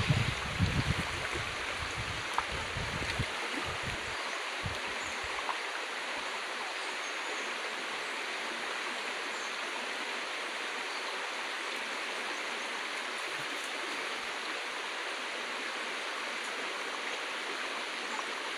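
Shallow river water rushing over rocks, a steady even noise. Low rumbling thumps come during the first few seconds and then stop.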